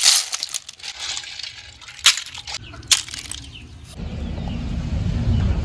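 Wet snail shells clattering and clinking as handfuls are dropped into a plastic basket, with water dripping off them and a few sharp clicks. About four seconds in this gives way to a steady low rumble.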